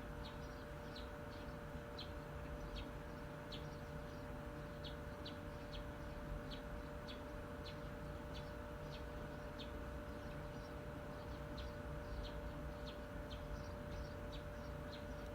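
Electric fan running with a steady hum, while a bird chirps repeatedly in short, high notes about twice a second.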